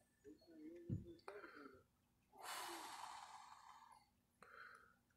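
Faint sounds close to the microphone: a low thump just before one second in, then a long breathy exhale like a sigh lasting over a second, and a shorter breath near the end.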